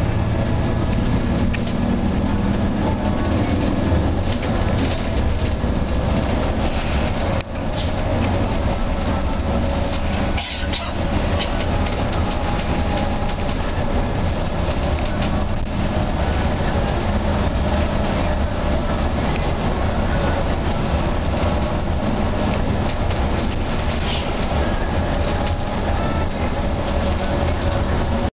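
Steady rumble of a moving bus heard from inside the passenger cabin: engine and road noise, with scattered rattles and knocks from the cabin.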